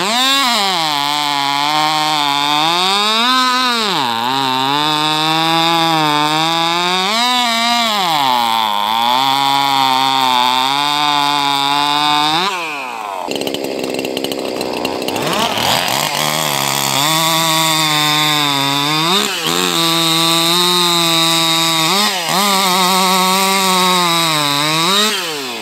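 Two 50cc two-stroke racing chainsaws run one after the other, each at full throttle cutting through a square wooden cant. The engine pitch dips and recovers several times as each saw goes in and out of its cuts. The first saw stops about halfway through, and the second starts a couple of seconds later.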